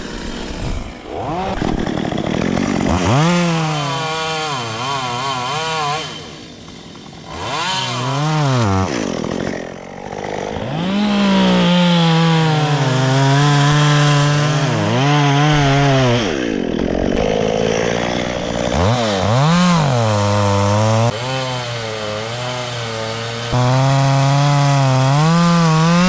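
Stihl two-stroke chainsaw revving. It drops back to idle twice in the first ten seconds, then is held at high revs for long stretches, cutting eucalyptus wood, with short dips in speed.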